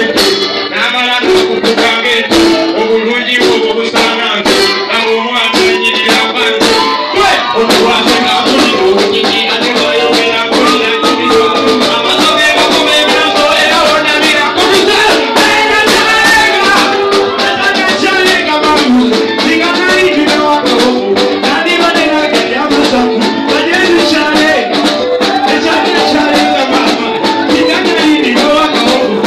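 A live band playing loud, dense dance music with busy, crisp percussion strokes throughout. The sound is thin, with almost no bass.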